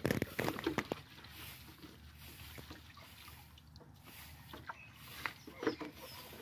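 Dishes being washed by hand in a bucket of water: a burst of scrubbing strokes in the first second, then soft sloshing and trickling water with a few light knocks of pots and basins near the end.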